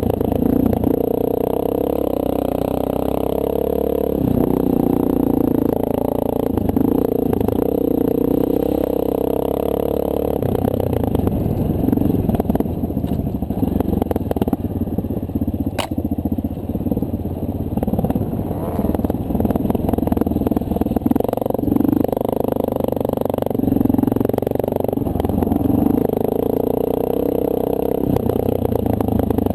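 2009 Honda CRF230L dual-sport motorcycle's air-cooled single-cylinder four-stroke engine running on a dirt trail, its pitch rising and falling as the throttle opens and closes. A single sharp click about halfway through.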